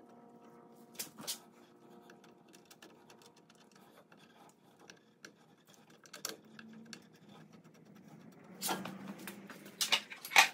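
Sparse, quiet metal clicks and taps of hands fitting a hollow brake-line bolt with crush washers to a disc brake caliper, with two sharper clicks about a second in and a denser run of clattering knocks near the end.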